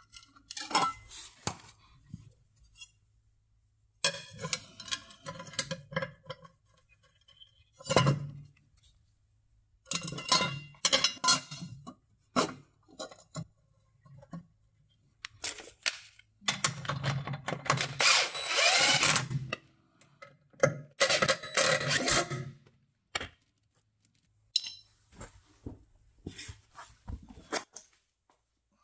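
Irregular clinks, knocks and scrapes of hand tools and metal parts against the steel track frame of a mini excavator as the track-tensioner access cover is refitted, with a longer harsh scraping stretch of about three seconds past the middle.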